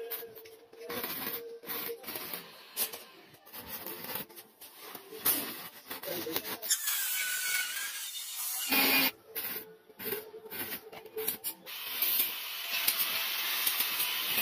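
Stick (arc) welding on steel rebar, crackling and sputtering in short irregular bursts. Around the middle and again from about two-thirds through, a steadier hiss takes over, as from an angle grinder on metal.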